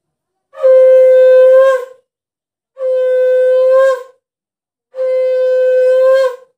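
Conch shell (shankha) blown three times in long steady blasts, each about a second and a half, the first the loudest, each bending slightly up in pitch at its end. This is the conch blowing of a Hindu household puja.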